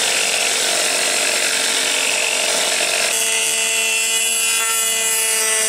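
A high-speed rotary tool grinds fuller grooves into a pattern-welded steel knife blade, first with a ball-shaped bit. About three seconds in the sound changes to a steady whine with a clear pitch as a pink abrasive disc grinds the groove.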